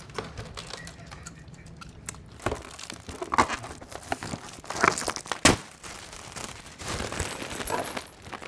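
Foil helium balloons crinkling and rustling as they are squeezed and their necks pulled open to suck helium out, with several louder crackly bursts in the middle.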